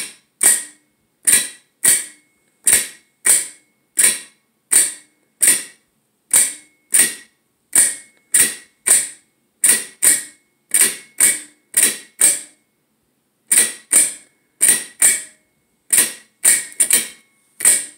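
Electric gate lock, run off a 12-volt battery, clicking over and over: about two dozen sharp mechanical clicks at irregular spacing, roughly one or two a second, with a short pause a little past halfway.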